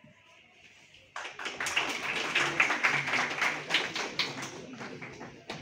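Audience clapping, starting about a second in and dying away gradually, with one sharp knock near the end.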